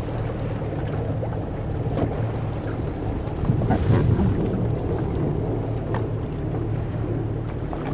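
Motorboat engine running at a low, steady hum, with wind on the microphone and choppy water around the hull. About four seconds in, a louder rushing noise swells briefly and fades.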